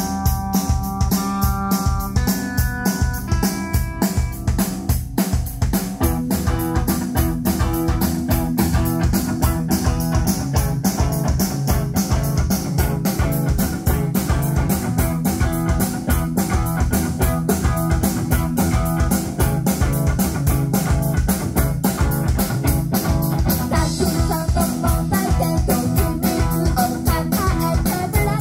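Live rock band playing an instrumental passage on electric guitar and drum kit, the drums keeping a steady, fast beat. A few single held notes open it, with fuller chords coming in about six seconds in.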